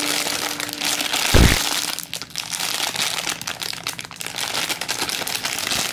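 Clear plastic packaging bag crinkling and crackling as a large foam croissant squishy inside it is squeezed and turned in the hands, with one short low thump about a second and a half in.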